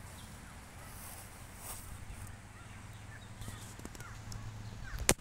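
Wind rumbling on the microphone, with a few faint bird calls and a single sharp click near the end.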